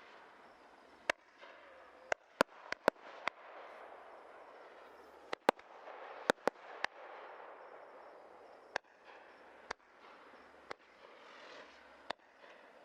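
Low-noise multi-shot firework cake of 37 mm tubes firing: sharp pops at irregular intervals, about a dozen, with a steady hiss between them.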